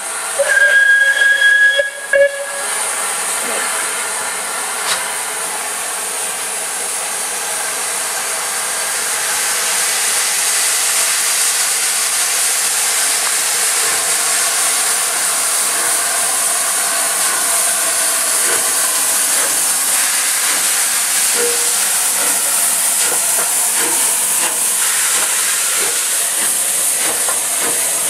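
Bulleid Pacific steam locomotive No. 34059 sounds its whistle for about two seconds, then steam hisses steadily and loudly from the engine, getting a little louder about ten seconds in.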